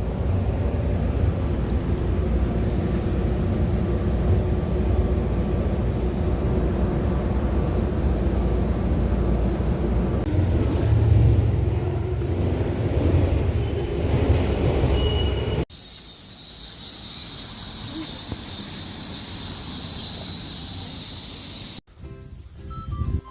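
A steady low rumble like a car driving, heard for most of the time. It cuts off abruptly and is followed by a high, evenly pulsing buzz, then, near the end, music.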